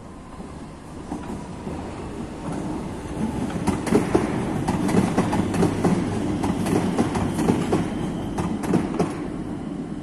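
Metro de Madrid train approaching and passing on open-air track: wheels running on the rails, building from about a second in to loudest in the middle, with a rapid series of sharp clicks, then easing off near the end.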